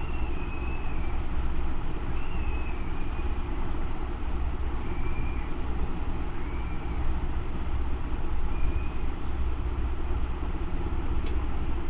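Steady background noise: a low rumble with a hiss over it and a few faint, short wavering whistles.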